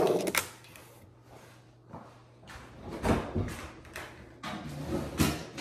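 Scattered knocks and thumps of household objects being handled and set down, with the loudest knocks at the very start, about three seconds in and about five seconds in.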